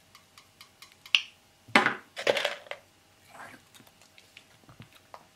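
Dog nail clipper snipping: a run of small clicks and a sharper snip about a second in. Two louder rough noises follow around two seconds in.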